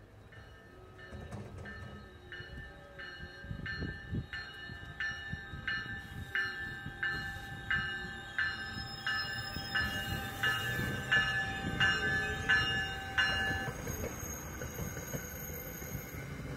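A train's warning bell ringing a little under twice a second and growing louder as the train approaches, then stopping about thirteen seconds in, over the rising low rumble of the train.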